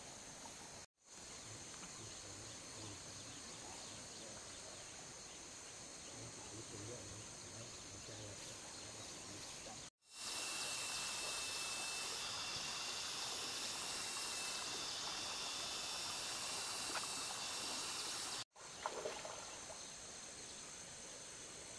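Steady rainforest insect chorus, a thin continuous shrill drone. It drops out briefly three times, and from about ten seconds in it is louder and higher for several seconds.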